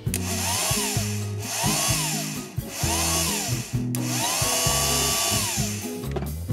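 Rebuilt motorcycle starter motor bench-run off a 12 V battery: it whines up and winds down in short bursts about once a second, four times, then runs for about a second and a half on the last. Background music plays underneath.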